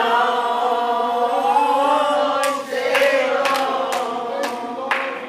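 Congregation singing a slow hymn without accompaniment, many voices holding long, drawn-out notes that slide slowly in pitch. A few sharp claps come in the second half.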